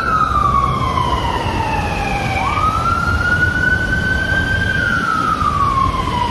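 Fire-rescue truck's siren wailing. Its pitch falls slowly over about two seconds, jumps back up a little after two seconds in, then climbs slightly and falls again. A low rumble runs underneath.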